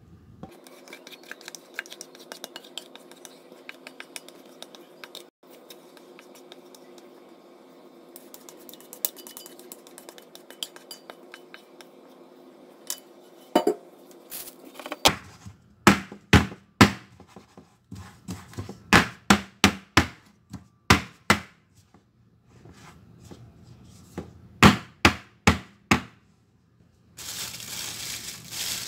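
Batter being scraped out of a steel mixing bowl into a metal springform cake pan, with light scraping clicks. From about halfway in come some twenty sharp knocks in clusters as the filled pan is tapped down on the countertop, the usual way to settle batter and knock out air bubbles. Near the end a plastic piping bag crinkles.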